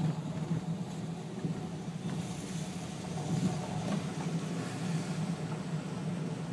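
Car engine and road noise heard from inside the cabin as the car rolls slowly in traffic: a steady low hum.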